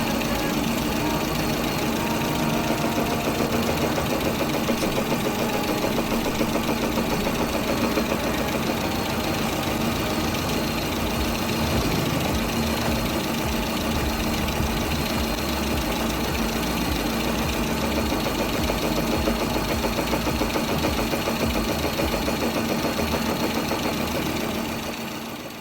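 Lada Granta engine idling steadily with a knock that is put down to the camshaft. The sound fades out near the end.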